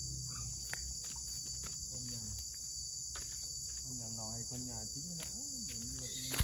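Insects in a steady, high-pitched drone that does not vary, cutting off abruptly at the end.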